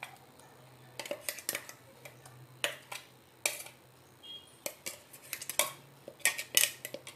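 A metal spoon scraping and clinking against a stainless-steel mixer-grinder jar and steel bowl as thick ground coconut chutney is scraped out of the jar. It makes irregular sharp metallic clicks and knocks, a dozen or so spread over the seconds.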